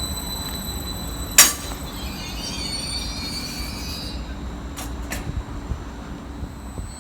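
A train running through the station: a steady low rumble with high-pitched squealing from the wheels on the rails. A sharp, loud clack about a second and a half in, and two lighter clicks around five seconds.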